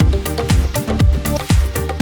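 Background dance music with a steady four-on-the-floor beat, a kick drum about twice a second.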